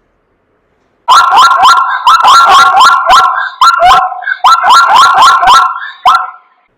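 Zebra calling: a loud run of rapid, high yelping barks, several a second, with brief breaks between the runs.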